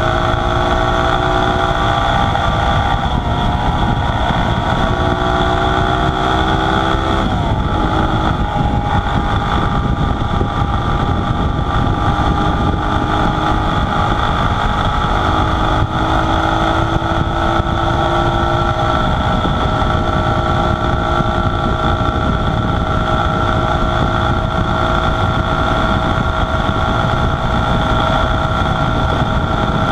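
1969 Honda SL90's small single-cylinder four-stroke engine running at road speed, with wind buffeting the microphone. The engine note climbs for a few seconds, drops sharply about seven seconds in as the gear changes up, then holds steady.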